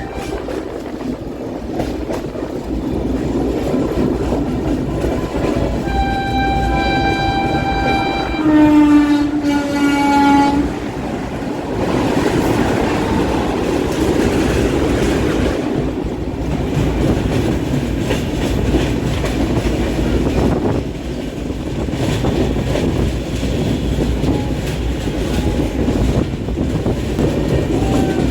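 Trains running past with a steady rumble and wheel clatter. A train horn sounds about six seconds in for roughly two seconds, then a second, louder horn follows with its pitch dropping, ending about ten seconds in.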